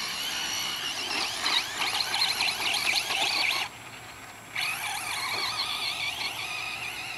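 Brushless electric motor and drivetrain of a Traxxas Slash RC truck whining, the pitch sliding up and down with the throttle. The whine drops away suddenly for about a second near the middle, then comes back.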